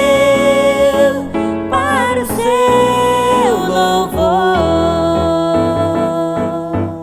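Music: the closing bars of a gospel worship song, with long held notes, one gliding down about three and a half seconds in, over keyboard and band accompaniment.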